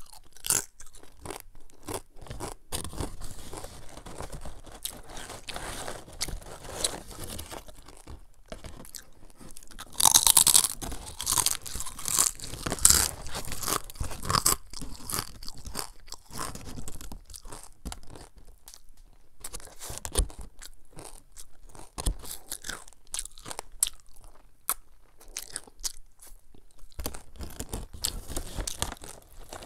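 Crunching and chewing of Artisan Tropic sea-salt cassava strips: crisp chips snapping and breaking between the teeth in an irregular run of bites, loudest in a cluster of crunches about ten to fifteen seconds in.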